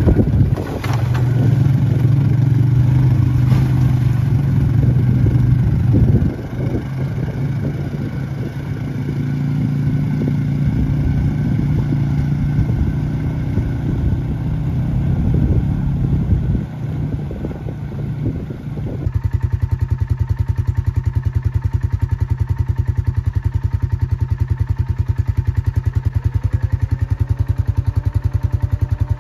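ATV engine running, its pitch and level shifting with the throttle while a six-wheeler with a trailer fords a shallow river. About two-thirds of the way in the sound changes abruptly to a steady, even engine drone.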